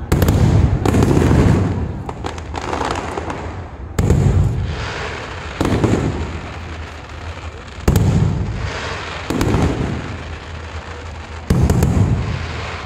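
Aerial fireworks shells bursting overhead: about seven sharp booms, spaced one to three seconds apart, each fading away over a second or two.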